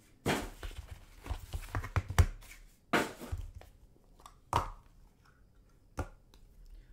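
Hands unpacking and handling trading cards: irregular rustling and crinkling of wrapping, with several sharp clacks of cards and plastic card cases set down on the table.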